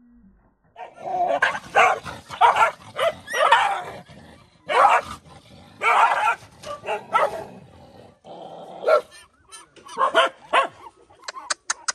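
Dogs barking in repeated sharp bursts in a squabble over food. Near the end comes a quick run of short clicks.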